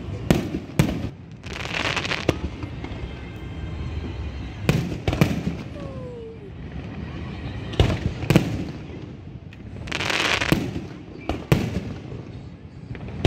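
Fireworks going off: a string of sharp bangs, several in close pairs about half a second apart, with a longer crackling hiss about two seconds in and another about ten seconds in.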